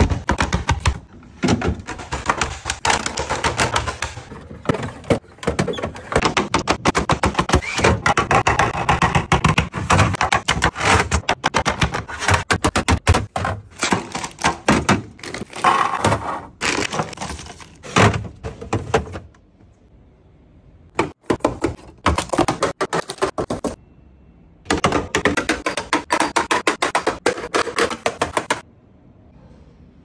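Plastic fridge bins and packaged food and drinks, such as milk cartons and yogurt cups, being handled and set in place: a dense, fast run of clacks, taps and knocks, with two short pauses in the second half.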